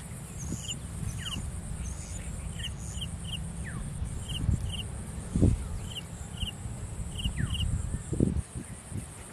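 Open-field ambience: a steady high insect drone, with birds giving short chirps again and again and a few falling whistles, over a low rumble. A couple of dull thumps come partway through.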